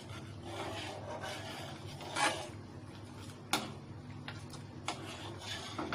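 A steel ladle stirring reducing milk in a steel pan, scraping the cream off the sides back into the milk, with a few sharp clinks of metal on metal over a steady low hum.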